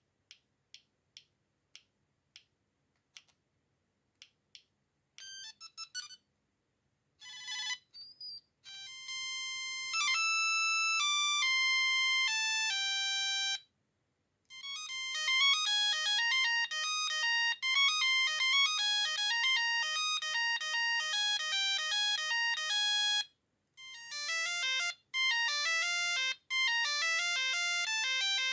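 Siemens A36 mobile phone playing its built-in monophonic ringtones, one electronic note at a time. First a string of faint short beeps, then several bright melodies in turn, each separated by a brief pause.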